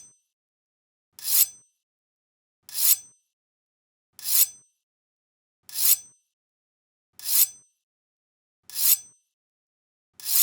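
A Japanese sword being drawn from its scabbard, over and over, about once every second and a half. Each draw is a short, high metallic scrape that swells and ends abruptly with a faint ring.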